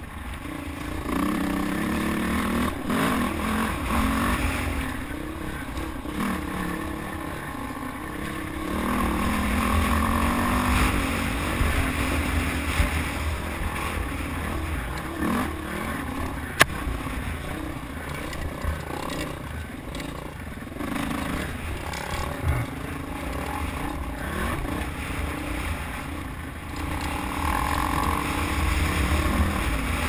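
Dirt bike engine heard from the rider's helmet, its pitch rising and falling as the throttle is worked over a rough dirt trail. A single sharp click comes a little past halfway.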